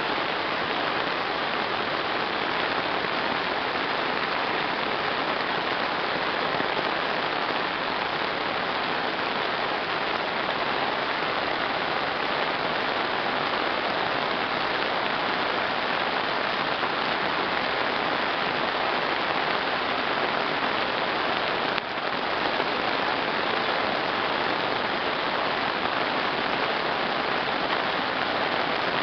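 Heavy downpour: a steady, dense hiss of rain pouring onto a wet asphalt road and the grass beside it.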